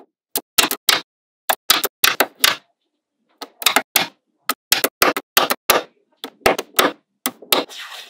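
Small magnetic balls snapping together with sharp clicks, in quick clusters of three to seven separated by short silent pauses.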